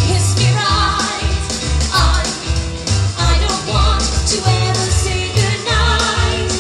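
Rock and roll number performed live through a stage sound system: singers on microphones over music with a strong, bouncing bass line.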